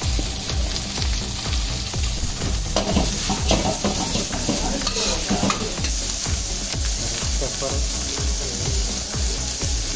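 Vegetables and meat sizzling in a hot wok while a metal ladle stirs and scrapes them.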